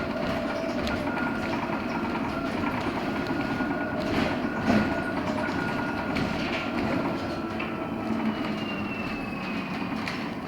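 Cabin noise of a LiAZ-6274 electric bus under way: a steady rumble with the high whine of the electric drive and a couple of knocks and rattles, the whine sliding down in pitch near the end.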